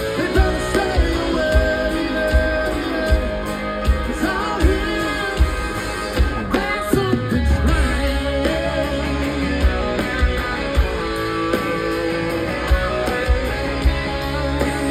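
Rock music in an instrumental passage without sung words: guitar lines over bass and a steady drum beat.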